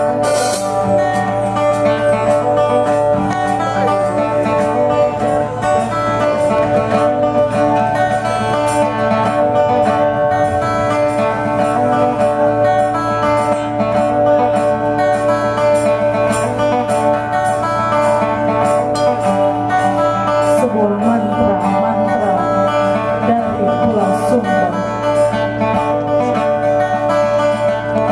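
Live band music: acoustic guitar playing over bass and drums, with a voice singing in places, most clearly in the last third.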